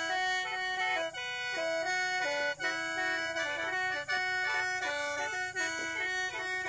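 Khaen, the Lao bamboo free-reed mouth organ, playing a melody in chords over held drone notes.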